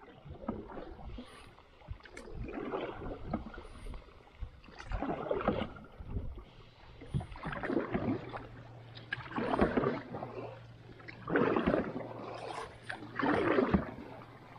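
Canoe paddle strokes: a swish of the blade through the water about every two seconds, in an even rhythm.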